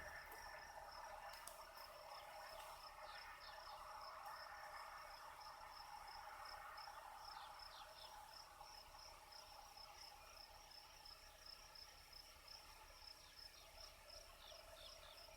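Faint insect chirping outdoors: a steady high trill pulsing at an even rate, with a few short falling high chirps over it.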